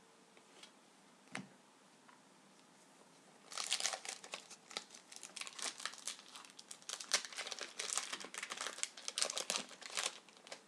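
A hockey card pack wrapper being torn open and crinkled: a dense run of crackles from about three and a half seconds in until near the end, after a single faint click.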